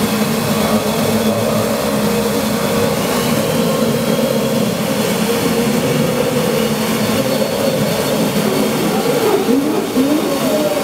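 Improvised electronic drone from a synthesizer and effects pedals: a dense, steady, noisy wash with held tones. A few wavering, gliding tones come in near the end.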